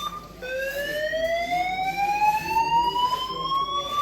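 Building fire alarm sounding a repeating rising sweep tone: each whoop climbs slowly in pitch for about three and a half seconds, then drops back and starts again, with one restart just after the start. It was set off when the hotel's fire suppression system went off.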